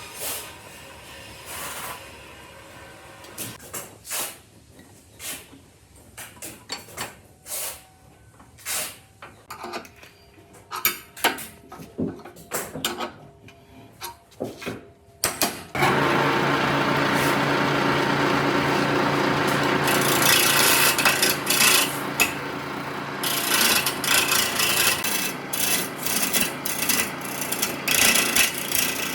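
Scattered knocks and scrapes of tools on wood, then about halfway through a power tool starts and runs steadily, rubbing and abrading the wood.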